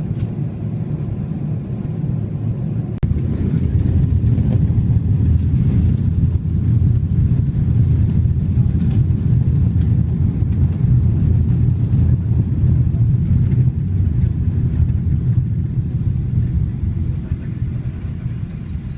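Airliner cabin noise during landing: a steady low rumble, with a sharp knock about three seconds in after which the rumble grows louder, as from wheels rolling on the runway, easing off near the end. No reverse-thrust roar stands out, which the passenger takes as a sign that an engine had been shut down.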